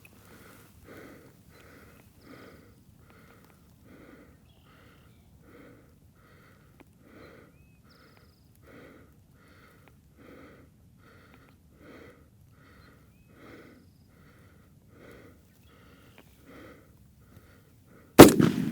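A person's rapid, even breathing close to the microphone, breath after breath, as the hunter works his way toward the bird. Near the end, a single very loud shotgun blast.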